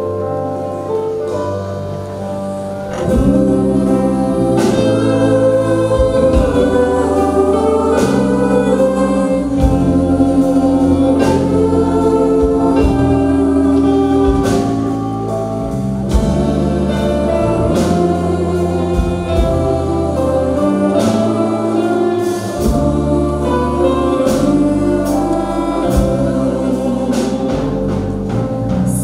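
A choir singing live with band accompaniment: held chords over a moving bass line, with percussion strokes. The music swells louder about three seconds in.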